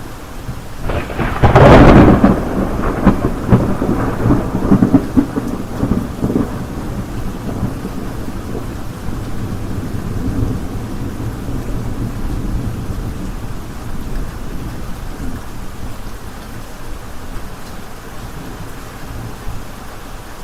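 Steady rain with a thunderclap about a second in: a sharp crack that rolls into rumbling peals for several seconds, then fades to a low rumble under the rain.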